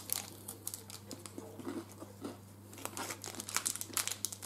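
Wrapper crinkling and crunchy bites and chewing of a KitKat Chunky cookie dough bar, heard as a string of short crackles that gets busier near the end.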